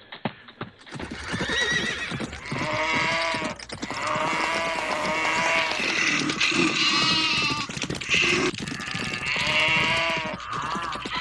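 A string of farm-animal calls: pitched cries that rise and fall, following one another almost without a break from about a second in.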